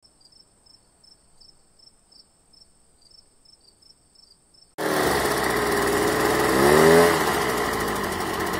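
Faint high steady buzz with regular chirps about twice a second, then, just under five seconds in, a Stihl handheld two-stroke leaf blower suddenly starts blowing loud. Its pitch swells and dips briefly around its loudest point.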